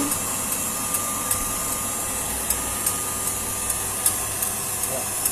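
Sugar syrup boiling hard in a stainless saucepan on an induction hob, its bubbles thickening as it nears the soft-ball stage, over a steady motor hum with a faint high whine. Light ticks come two or three times a second.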